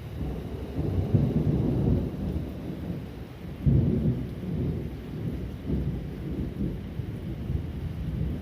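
Thunder rumbling during a thunderstorm, swelling about a second in, with a sharper, louder clap about three and a half seconds in that rolls on and slowly dies down.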